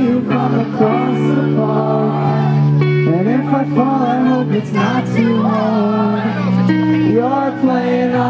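Live band music with a male voice singing over guitar.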